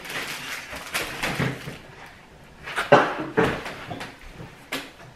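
A few short, noisy sounds close to the microphone from a person tasting a Pop-Tart held up to his face.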